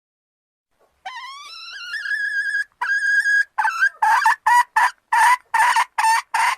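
Red junglefowl (wild chicken) calling. It gives a long rising note that levels off, then a second held note, then a quick series of about eight short, rough notes.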